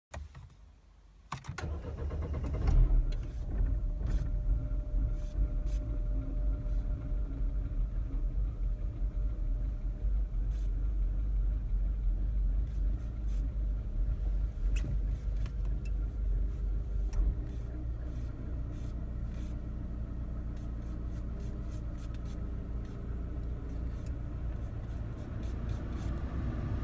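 Mini R56 four-cylinder engine cranking and catching about a second in, flaring briefly, then idling unevenly with a misfire and scattered sharp ticks. The idle settles a little lower about two-thirds of the way through.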